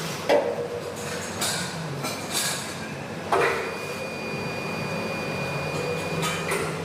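Sharp metal knocks over a steady workshop background, one near the start and a louder one about halfway. After the second, a thin high ringing tone holds for about three seconds, then stops with a small knock.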